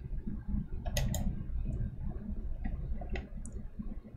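A few light clicks, two close together about a second in and another a little past three seconds, over a low rumble of room noise.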